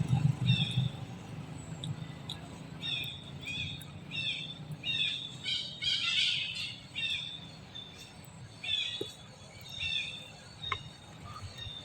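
A bird calling over and over, a run of short falling chirps about two a second, loudest near the middle, with a low rumble in the first second.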